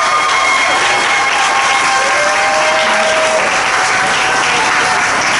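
Audience applauding after a song ends, with a few voices cheering over the clapping.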